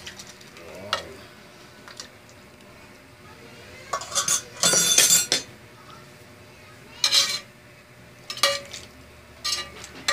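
Metal spoon scraping and clinking against a frying pan as its food is scraped out into a pot, in short separate strokes. The longest and loudest scrape comes about four to five seconds in.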